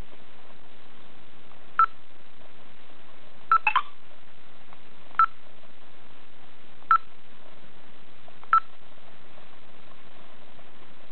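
Short electronic key-press beeps from a GPS navigator's touchscreen as a stylus taps it. Single beeps come about every second and a half, with a quick cluster of higher beeps about three and a half seconds in, over a steady hiss.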